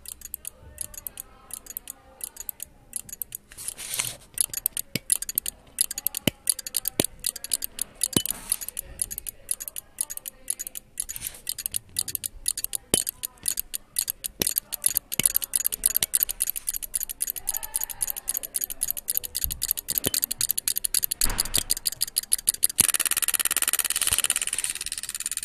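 Relay clock board ticking: the relays click in a steady rhythm that speeds up from a few clicks a second to a rapid chatter. Near the end the clicks run together into a continuous buzz.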